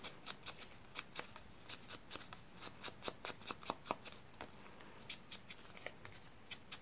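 Faint, scratchy brushing of a foam ink blending tool dabbed and swiped along the torn edge of a paper strip, in quick light strokes several times a second, distressing the edge with ink.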